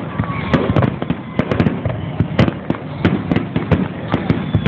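Aerial firework shells bursting in a rapid, irregular barrage of sharp bangs and pops, about four or five a second.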